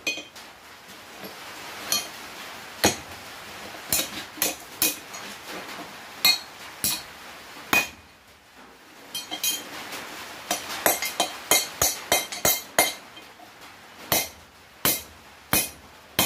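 Hand hammer striking a hot steel bar on an anvil, forging a bend. The blows come irregularly, pause briefly about halfway, then come in a quicker run, and some blows ring with a short metallic tone.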